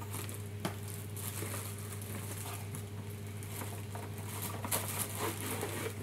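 Cardboard box flaps and a clear plastic bag rustling and crinkling as an electric kettle is lifted out of its packaging, with a few light knocks, over a steady low hum.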